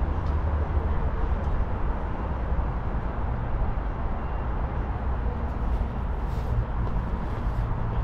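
City street traffic: a steady low rumble of passing vehicles, with a few faint ticks.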